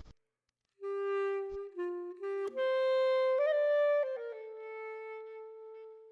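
Music: after a brief silence, a slow melody of a few held notes stepping up and down, the last note held for nearly two seconds and fading away.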